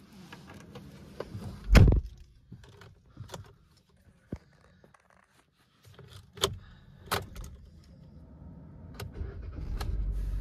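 Car keys jangling and clicking in the cabin of a Kia car, with one heavy thump about two seconds in. Near the end the engine starts and settles into a steady low running sound.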